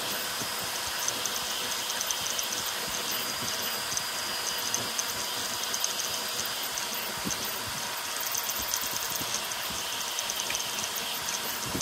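ZeroG Mercury 1.1 CoreXY 3D printer (a converted Ender 5 Pro) printing at high speed: the stepper motors whine and chirp with fast ticking as the toolhead rapidly changes direction, over the steady hiss of its CPAP part-cooling air.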